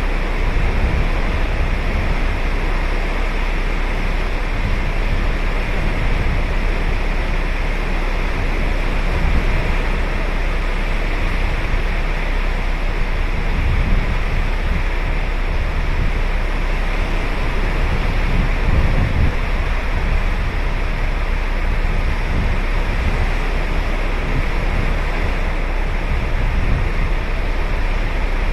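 Ocean surf breaking and washing up a sandy beach, a steady unbroken wash of waves with a deep low rumble underneath.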